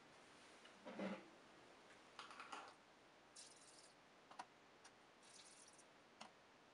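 Near silence with a few faint, scattered clicks and brief soft rustles.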